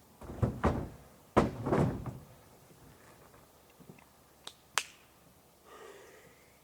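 Scraping and bumping of a moose carcass being hauled over wooden planks into a pickup bed, in two rough noisy bursts, the second starting suddenly. Two short sharp knocks follow about four and a half seconds in.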